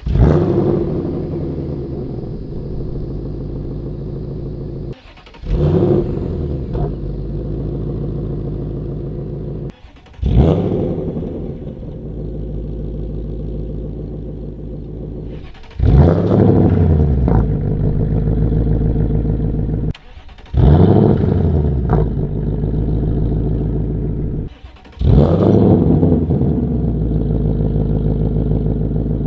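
2024 Ford Mustang Dark Horse's 5.0-litre Coyote V8 starting up six times through a combined H-pipe and X-pipe resonator delete exhaust. Each start is a loud flare in revs that drops back into a steady, deep idle.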